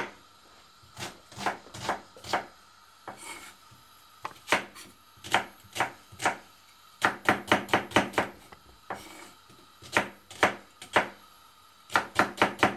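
Kitchen knife chopping an onion on a wooden cutting board: irregular sharp knocks, some single and some in quick runs, the fastest run about seven seconds in and another near the end.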